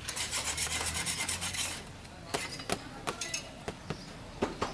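Metal bench scraper dragged in rapid strokes across a floured steel worktable for nearly two seconds, then a string of separate sharp taps as the scraper blade chops down through dough onto the steel.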